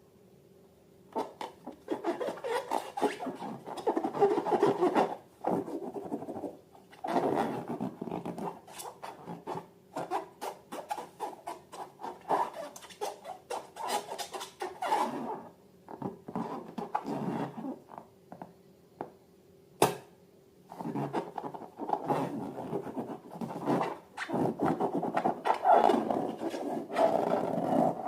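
Hands working balloons and slime: irregular rubbing and scraping in bursts of a few seconds, with short pauses between them and a single sharp click about twenty seconds in.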